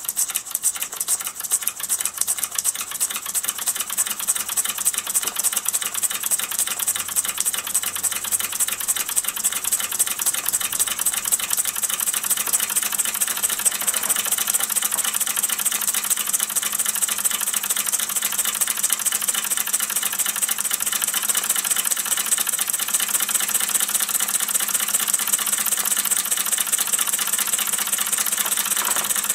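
Gas-fired Mamod SP7 twin sleeve-valve model steam engine running steadily: a fast, even ticking beat with a light mechanical rattle, growing slightly louder over the first half.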